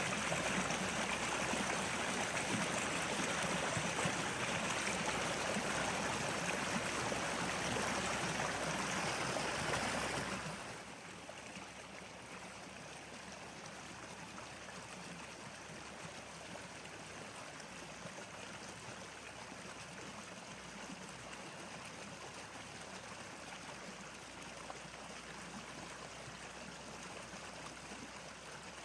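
Steady rush of flowing water, louder for about the first ten seconds, then dropping suddenly to a quieter, even flow.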